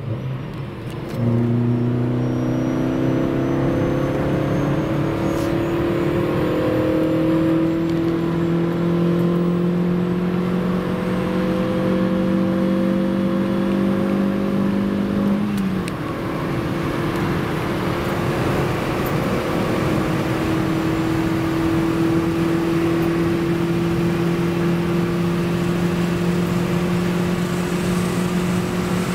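Mazda MX-6's 2.0-litre FS inline-four engine heard from inside the cabin under hard acceleration: its note opens up about a second in and climbs slowly through a gear, drops at a gear change about 16 seconds in, then climbs again through the next gear.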